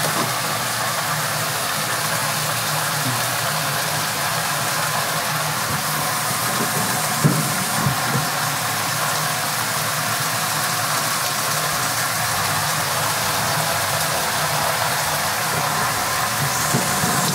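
Pork with onions and carrots frying in a cooking pot: a steady sizzle, with one sharp knock of a utensil against the pot about seven seconds in.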